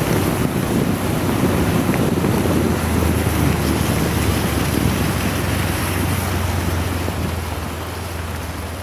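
Heavy rain and rushing wind on the microphone of a moving motorcycle, with the bike's low steady engine hum beneath. It fades gradually over the last few seconds.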